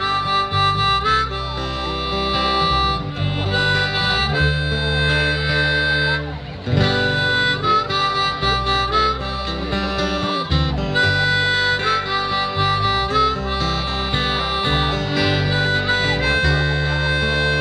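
Live band's instrumental break: a harmonica playing long held lead notes over strummed acoustic and electric guitars and a bass line, with one short gap about six seconds in.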